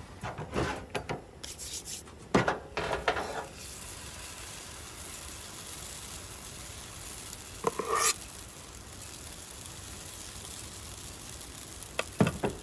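Hot oil sizzling steadily in a black griddle pan on a camp stove as pancake batter is ladled in, with short spells of a ladle scraping and clinking near the start, about 8 seconds in, and again near the end.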